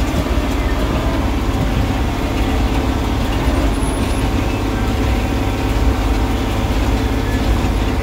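Tractor engine running steadily under load, heard from inside the cab, with a 327 small square baler working behind it.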